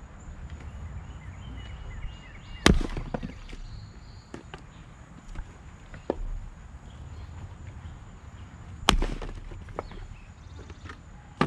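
Two sharp cracks of an axe driven into maple rounds, about six seconds apart, with lighter knocks of split wood being handled and set on the block between them.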